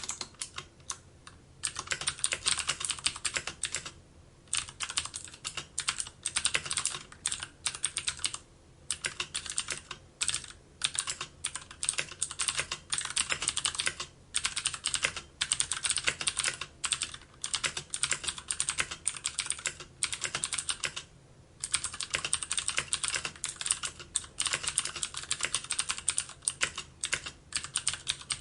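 Computer keyboard being typed on in fast, steady runs of key clicks, broken by brief pauses every few seconds.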